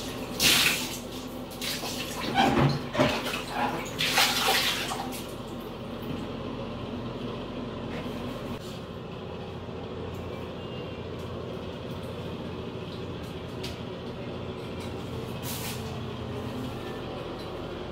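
Water splashing into a bathtub in several loud splashes over the first five seconds, as water is tipped out over the tub floor to rinse it; after that only a steady low hum.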